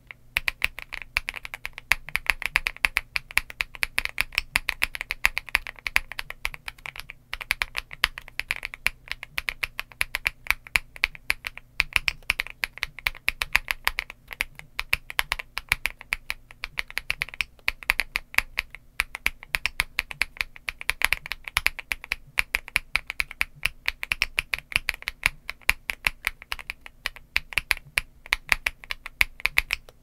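Continuous fast typing on a Wobkey Rainy75 aluminium-cased mechanical keyboard with JWK linear switches and Cherry-profile PBT keycaps: a dense stream of key clacks, with a brief pause about seven seconds in.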